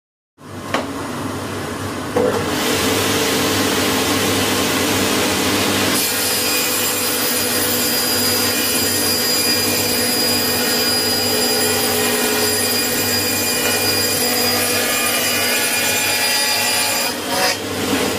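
Table saw with an 80-tooth carbide-tipped Amana Tool double-sided melamine blade, together with dust extraction, starting up within the first two seconds and cutting a melamine panel. The sound runs steadily, with a high whine from about six seconds in, and changes and falls away near the end.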